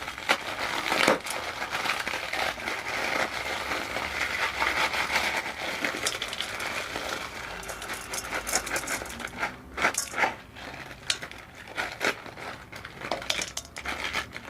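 A plastic packet of Wai Wai instant noodles crinkling as it is crumpled and the dry noodles inside are crushed: dense crackling for the first several seconds, then sparser crackles and clicks.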